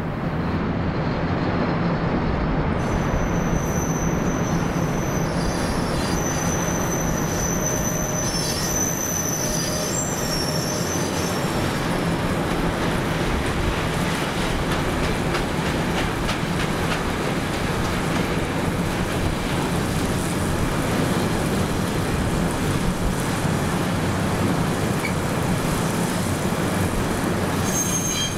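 Container freight train rolling past: a steady rumble of wagons on the rails, with high squealing from the wheels from about three to twelve seconds in and again near the end.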